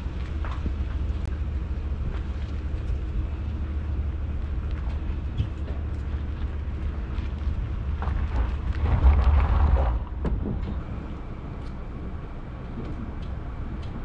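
Pickup truck engine running at low speed while towing a boat on its trailer, a steady low hum with a louder rush lasting about two seconds past the middle.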